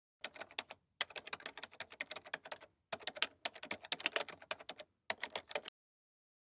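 Rapid computer-keyboard typing in four bursts, the longest lasting about two seconds, with dead silence between them.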